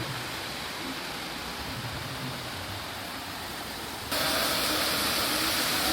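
Steady hissing background noise that abruptly becomes louder and brighter about four seconds in.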